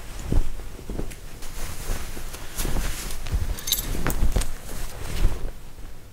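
Rustling and irregular thumps of a costume being wrestled onto a person, with a brief metallic jingle about halfway through.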